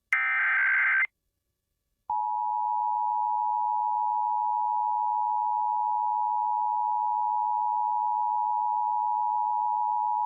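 Emergency Alert System test signal: the final one-second burst of warbling SAME header data, then, after a second of silence, the steady EAS two-tone attention signal for about eight seconds. Together they mark the start of a Required Monthly Test alert.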